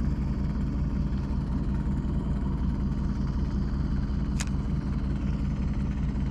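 Steady low rumble at an even level, engine-like, with a short sharp click about four and a half seconds in.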